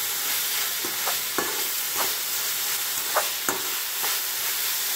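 Chopped onions and green chillies sizzling as they sauté in oil in a metal wok, stirred with a metal spatula that scrapes and taps against the pan about six times.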